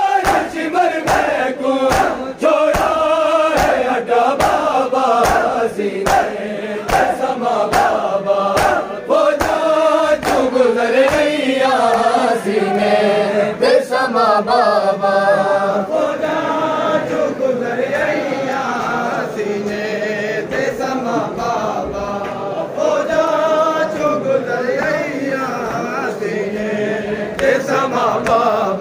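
A crowd of men chanting a Punjabi/Urdu noha in unison, with the regular slaps of bare-handed chest-beating (matam) keeping the beat, the slaps most prominent in the first ten seconds or so.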